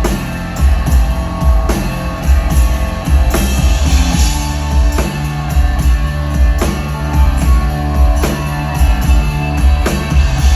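Live rock band playing an instrumental passage: guitars over a steady drum beat and heavy bass.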